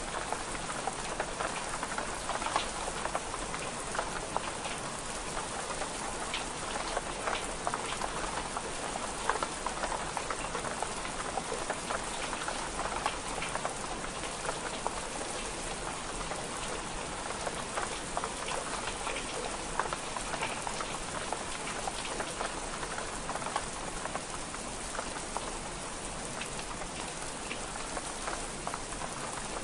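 Steady rain on window glass: an even hiss with many small sharp ticks of drops striking.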